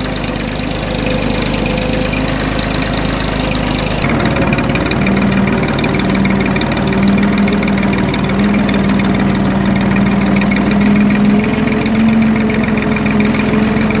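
Farm tractor engine running steadily while pulling a ridging plough through tilled soil, its note dipping a little about four seconds in.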